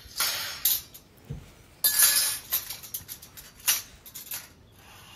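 Stainless steel kitchen rack parts clinking and scraping against each other as the frame pieces are picked up and handled, in a few short bursts of clatter, loudest about two seconds in.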